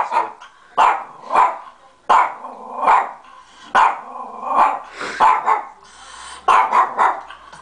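A dog barking over and over, about ten sharp barks at uneven intervals with short gaps between some. The barking is nervous and defensive, which the owner puts down to the dog being intimidated by people he doesn't know.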